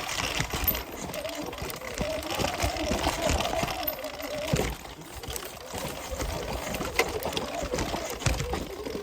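Sur-Ron Ultra Bee electric dirt bike's motor whining, its pitch rising over the first few seconds and dropping back about halfway through as the throttle comes off, with knocks and rattles from the bike over rough ground.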